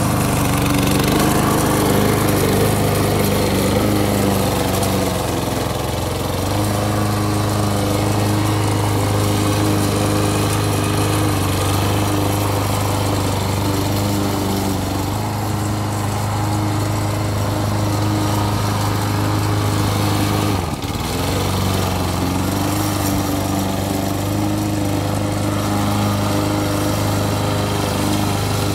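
A homemade remote-controlled lawn mower's small petrol engine runs steadily as it drives and cuts grass. The sound breaks off for a moment about two-thirds of the way in.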